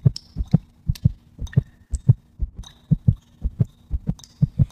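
Heartbeat sound effect: a quick, steady pulse of low thumps over a faint steady hum.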